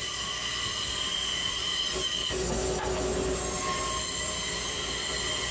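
Bandsaw running and cutting through plywood: a steady whine with a few high held tones. The tones break off and change briefly a little past two seconds in.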